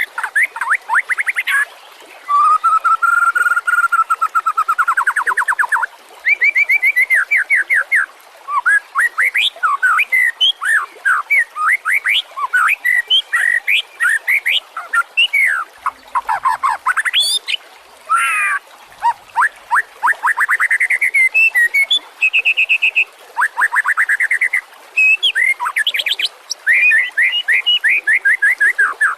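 White-rumped shama (murai batu) singing a long, varied song of rapid trills, quick runs of repeated notes and clear gliding whistles, phrase after phrase with only brief pauses.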